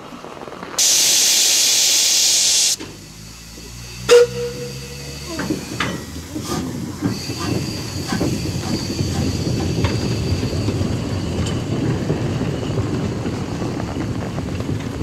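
Narrow-gauge steam locomotive close up: the cylinder drain cocks blow off steam with a loud hiss for about two seconds. A sharp metallic clank follows about four seconds in. Then the running gear and wheels rumble and clatter under hissing steam as the locomotive moves.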